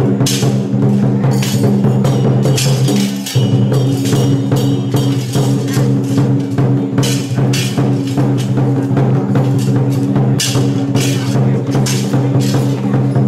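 Loud traditional temple procession percussion: drums with cymbals and gongs struck in a driving, repeated beat, over a steady low droning tone that drops out briefly about three seconds in.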